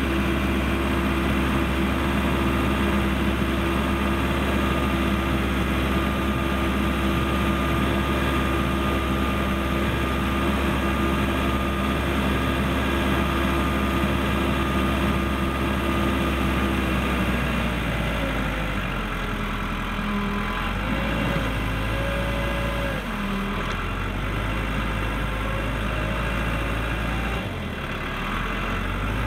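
Case 580L backhoe's turbocharged diesel engine running steadily. From a bit past halfway its pitch drops and wavers up and down as the machine works, pushing snow.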